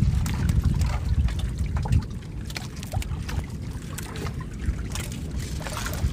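Water trickling and splashing, with many small irregular clicks and knocks over a low rumble.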